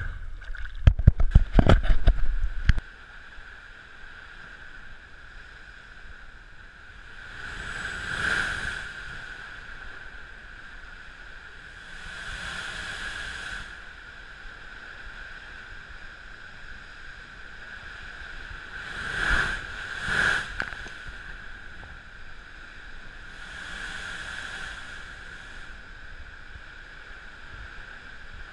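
Water splashing and sloshing around the diver's head and mask for the first few seconds as he goes under. Then, underwater, the rushing bubble bursts of scuba regulator exhalations, about every four to six seconds, over a steady faint whine.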